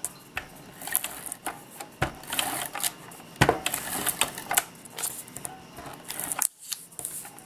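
A clear plastic storage case with a red lid being handled and shifted on a tabletop, giving irregular plastic clicks and taps with a few louder knocks.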